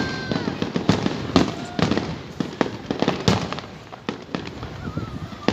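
Fireworks display: a steady run of sharp bangs and crackles, about two to three a second, each trailing off in a short echo.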